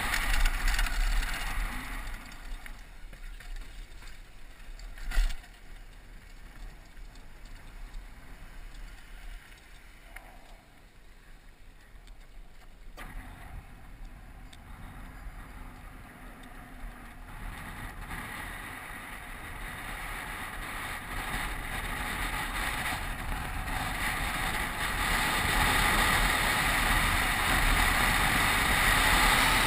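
Downhill mountain bike ridden at speed, heard from a helmet-mounted camera: an even rush of wind on the microphone and tyre and frame noise, with a sharp knock about five seconds in. The rush grows steadily louder over the last ten seconds or so, on the paved road.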